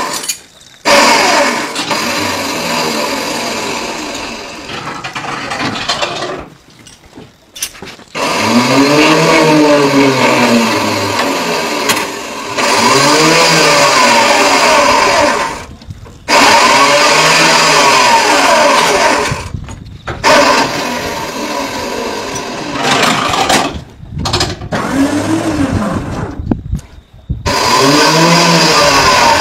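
A power saw's electric motor working on hanging beef carcasses. It revs up and winds down again and again, every few seconds, and is broken by several sudden cut-outs.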